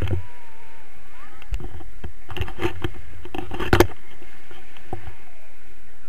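Wind rushing over an action camera's microphone in flight under a paraglider, with a stretch of louder buffeting and crackle in the middle.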